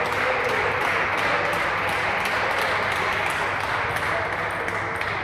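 Small crowd of spectators applauding at the end of a table tennis point, dying away near the end.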